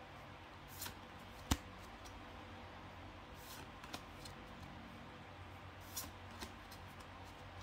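Pokémon trading cards being slid and flipped through by hand: a few soft swishes of card against card, and one sharp click about a second and a half in.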